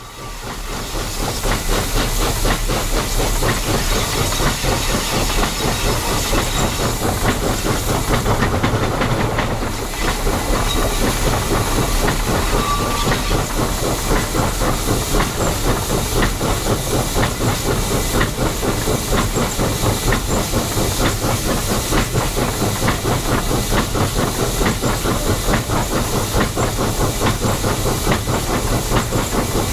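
Denver & Rio Grande Western K-36 No. 484, a narrow-gauge 2-8-2 steam locomotive, under way and heard close up from its running gear: steady steam hiss with a fast, even rhythm of beats. It fades in over the first second, and the overloaded microphone distorts it.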